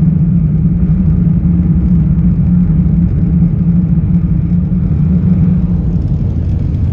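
Steady, loud rumble inside the cabin of an L0 series superconducting maglev running at about 500 km/h, with a strong low hum under it.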